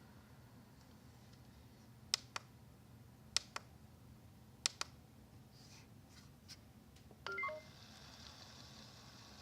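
Neato XV-21 robot vacuum: three pairs of sharp clicks from its buttons being pressed, then a short electronic tune of stepped beeps, after which its motor starts up with a steady whir as the cleaning run begins.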